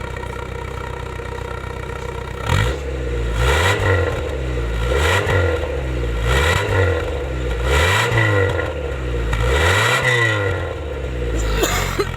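The four-cylinder engine of a 2000 Honda City idles, then is revved about five times in a row, each rev rising and falling back, before settling to idle again. It revs without missing, its misfire cleared by cleaning the injectors and fuel system.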